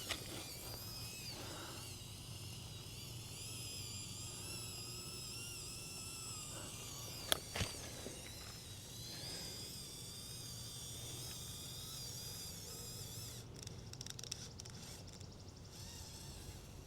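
Faint whine of a small RC rock crawler's electric motor and gears, wavering in pitch as the throttle changes on a rock climb. Two sharp clicks come a little past halfway, and near the end there is a patch of small crackling ticks.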